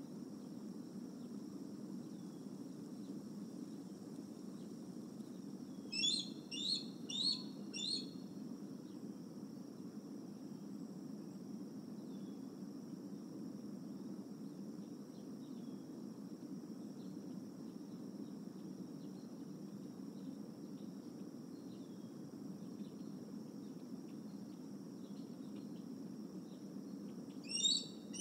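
Bald eagle calling: a quick run of four high, piping notes about six seconds in, and another short run near the end. Underneath is a steady high-pitched tone and a low rumble of background noise.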